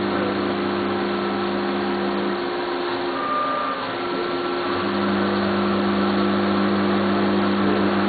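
FANUC Robodrill machining centre 5-axis milling a steel dome under coolant spray: a steady hum of spindle and cut over an even hiss. The low hum drops away for about two seconds midway, then comes back.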